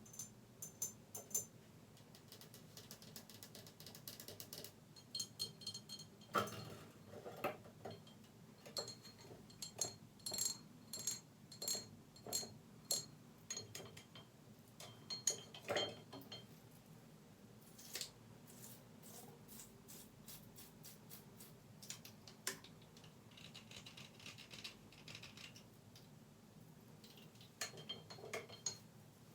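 Fast tapping and scratching on hard bathroom objects: quick clusters of sharp taps, some ringing briefly with a high tone, with a quieter stretch around the middle.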